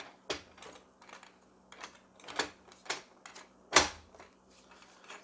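Extension table of a Singer 64S Heavy Duty sewing machine being slid onto the free arm and pressed into place, giving a series of sharp clicks and knocks at irregular spacing. The loudest knock comes just under four seconds in.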